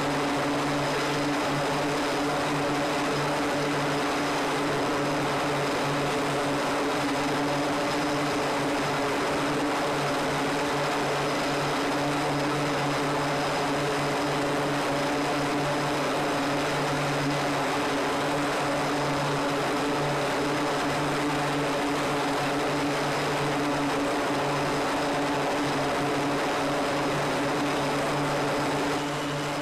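An E-2 Hawkeye's twin turboprop engines running as it taxis, a steady propeller drone with a low hum and several fixed tones above it.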